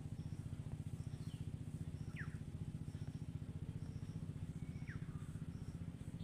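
An engine running steadily, a low, fast, even throb. Short high falling chirps come through over it about three times.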